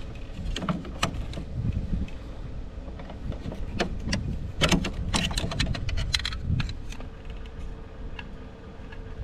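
Irregular metallic clicks and clinks of a hand tool and screws as a screw is undone on a truck's lamp housing, the busiest run about five seconds in, over a steady low rumble.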